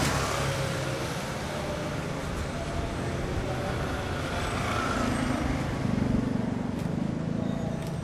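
Motorbikes passing close by on a street, engines running, with a louder one going past about five to six seconds in, over steady traffic noise.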